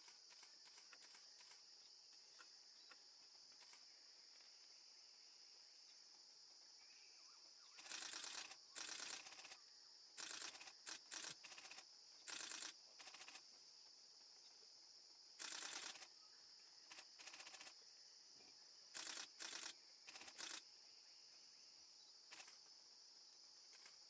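Faint rainforest ambience. A steady high-pitched insect drone runs throughout, broken in the middle by about a dozen short, harsh bursts of noise, each under a second long.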